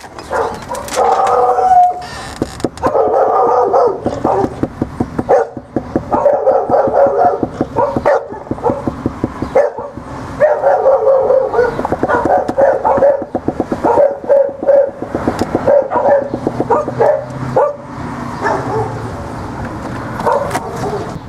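A dog barking repeatedly and excitedly, with knocks on a wooden front door.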